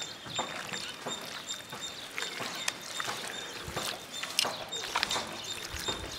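Scattered, irregular clicks and knocks over a noisy background.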